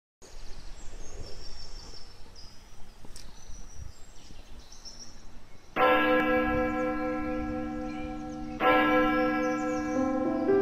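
Birds chirping over a faint outdoor background, then a large bell strikes twice, about three seconds apart, each stroke ringing on and fading slowly. Near the end, further bell tones at other pitches start to overlap.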